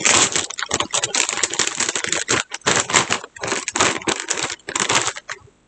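A Lay's potato chip bag being pulled open by hand, its foil-lined plastic crinkling and crackling in quick, irregular bursts that stop about five seconds in.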